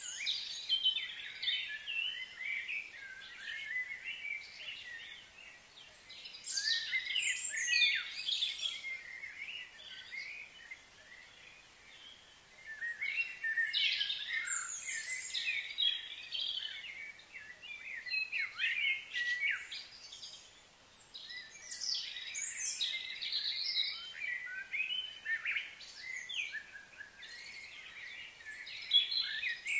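Small birds chirping and singing, many quick sliding high notes in bursts with short lulls between them.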